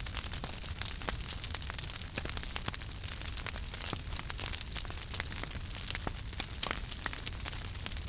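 Fire crackling: a steady stream of irregular sharp snaps and pops over a low, even rumble and hiss.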